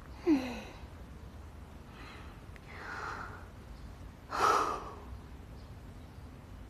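A woman's soft breath sounds: a brief falling 'hm' at the very start, then two breathy sighs, the louder one about four and a half seconds in, over a low steady room hum.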